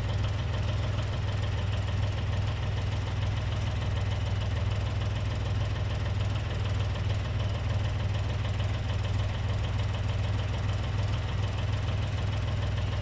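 Komatsu PC28 mini excavator's diesel engine running steadily, with no change in speed.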